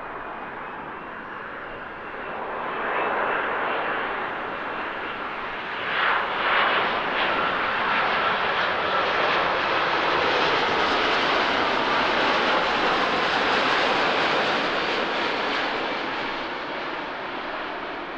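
Boeing 787-9 airliner on final approach with its gear down, jet engines passing close: a broad rushing jet noise that builds over the first few seconds, is loudest from about six seconds in with a faint steady whine through it, and eases off near the end.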